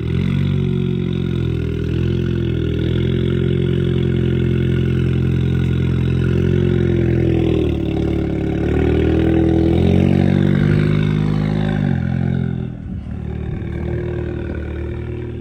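Volkswagen Golf GTI TCR's turbocharged four-cylinder engine and exhaust running at fairly steady revs. The pitch dips briefly about eight seconds in, then drops and quietens about twelve seconds in.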